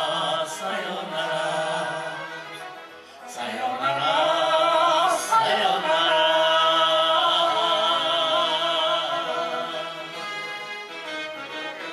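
A group of older men and women singing a Japanese popular song in unison to instrumental accompaniment. They hold a long note from about four seconds in, and the music turns softer near the end.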